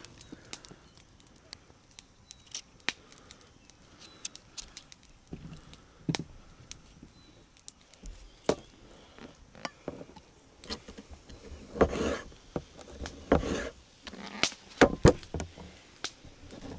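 Scattered sharp clicks and knocks of things being handled at a camp, sparse at first, then heavier thumps and rustling over the last few seconds.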